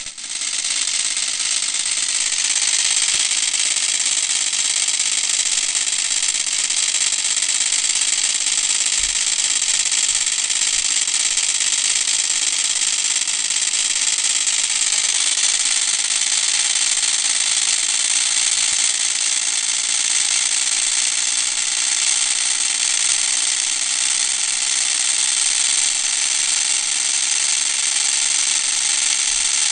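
Meccano model helicopter's small electric motor whirring steadily as it drives the spinning rotors. It comes up to speed over the first couple of seconds, then holds an even, high whir.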